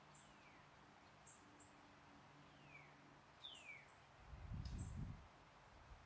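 Birds calling faintly: three thin whistles that slide down in pitch, and short high chirps. A low rumble of wind on the microphone comes about four seconds in.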